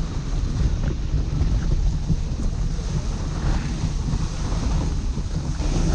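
Wind rumbling on the microphone of a camera riding a two-dog sled moving over snow, over an even hiss from the sled's runners on the snow.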